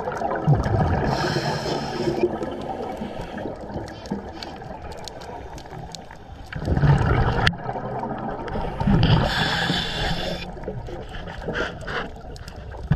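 Scuba diver breathing through a Scubapro regulator underwater: a hissing inhale through the regulator twice, and low, gurgling bursts of exhaled bubbles.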